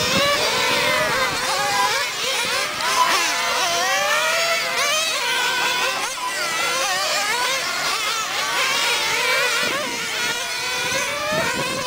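Several 1/10-scale nitro RC car engines running at high revs together, their pitches rising and falling over one another as the cars accelerate and lift off around the track.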